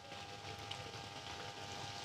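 Samosas deep-frying in a wok of hot oil: a steady sizzle of bubbling oil, with a fresh samosa lowered into the oil at the start.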